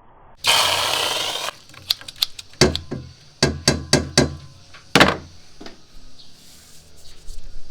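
Handling noise from hard objects: a rush of noise lasting about a second, then a run of about eight sharp taps and clicks, some with a dull thump.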